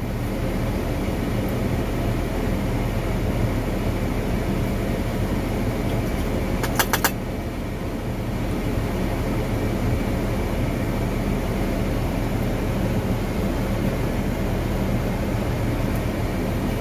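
John Deere 8300 tractor's diesel engine running steadily, heard from inside the cab as it pulls a grain cart through the field. A quick cluster of clicks comes about seven seconds in.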